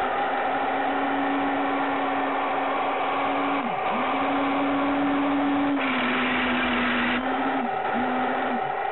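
Heng Long RC Tiger II tank driving and pivoting on carpet: a steady whine from its electric drive motors and gearboxes. The whine drops away and starts again twice as the tank stops and changes direction. A hiss of about a second and a half comes just past the middle.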